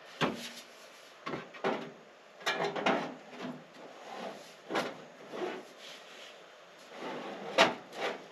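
Sheet-metal downspout elbow and pipe sections being pushed and twisted together by hand, a series of irregular scraping, rubbing clunks, the loudest near the end.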